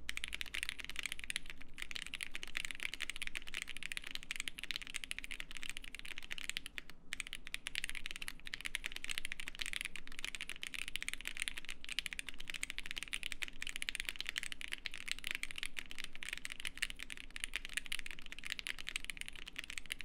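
Fast, continuous typing on a Bubble75 prototype mechanical keyboard fitted with Pinoko switches and an EVA foam dampener: a steady stream of crisp key clacks, with brief pauses about two and seven seconds in.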